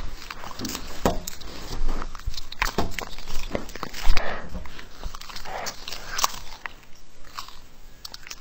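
Two cats biting and chewing on a strip of meat: irregular wet smacks and clicks of teeth, with one sharp knock about four seconds in.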